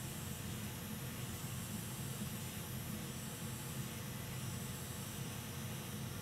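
Hot air rework station blowing a steady hiss over a low hum while it reflows the solder under a USB-C connector being pressed down onto its pads.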